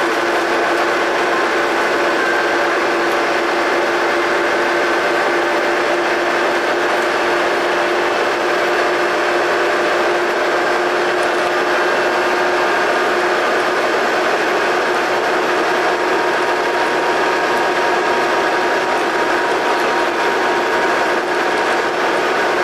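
Double-decker bus engine and drivetrain heard from inside the bus while it runs at a steady speed. The running noise stays even throughout, with a constant whine over it.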